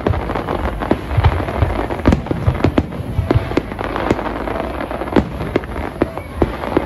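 Fireworks display: a dense, irregular run of bangs, a couple of sharp reports a second, over continuous crackling and low booming rumble.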